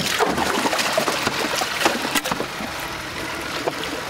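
Water splashing and trickling in a boat's deck fish box as a fish is worked in, with scattered knocks against the hatch.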